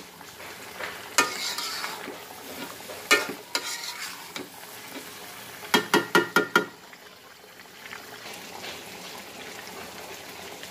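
Chicken and potato curry sizzling in a karahi while a spatula stirs it, scraping and knocking against the pan. A quick run of about five ringing clanks comes about six seconds in, after which only the steady sizzle remains.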